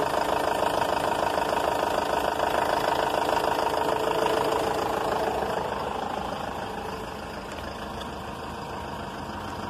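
Renault Master's 2.5 G9U four-cylinder turbodiesel idling steadily, freshly rebuilt with new rings, bearings, crankshaft and cylinder head. The sound grows somewhat quieter from about six seconds in.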